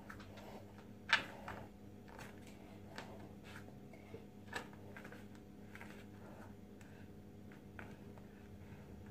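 Quiet room tone with a steady low hum and a few soft clicks and taps, the loudest about a second in.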